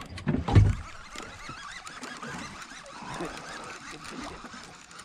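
Water lapping and trickling against a small boat's hull on a calm sea, with a single dull knock about half a second in.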